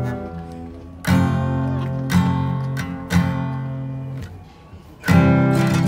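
Background music: a chord struck about a second in, two more single notes that ring out and fade, a quiet gap, then another full chord near the end.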